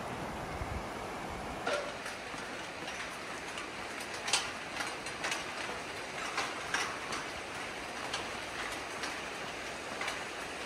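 Rushing river water, then from about two seconds in, footsteps clanking irregularly on the steel mesh deck of a suspension footbridge, with the river rushing below.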